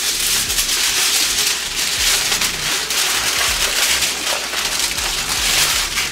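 Aluminium foil crinkling continuously as it is folded and pressed by hand around pork ribs.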